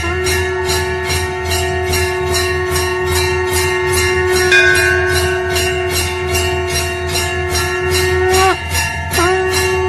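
Conch shell (shankh) blown in one long steady note, which sags and breaks off for breath near the end, then starts again. Temple bells ring rapidly behind it, about three strikes a second.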